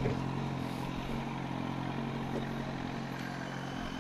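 Kawasaki motorcycle's engine idling steadily, a low even hum.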